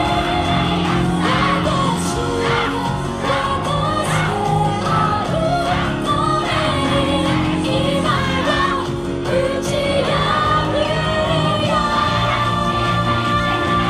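Yosakoi dance music with singing over a steady, pulsing bass line.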